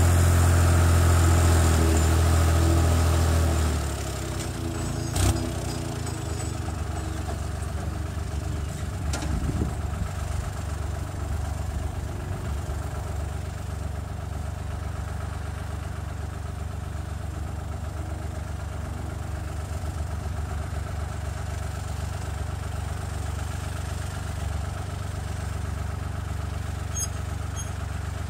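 Fiat 54C tractor engine running hard, then dropping to a steady idle about four seconds in as the tractor comes to a stop, idling on for the rest of the time. A single sharp click about five seconds in.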